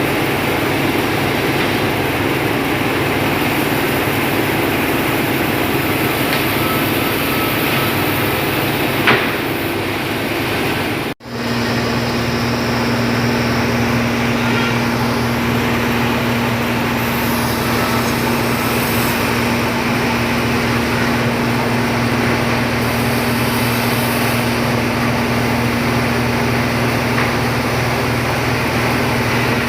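Heavy machinery running steadily, with a short click about nine seconds in. About eleven seconds in the sound cuts off abruptly and resumes as a steady machine hum.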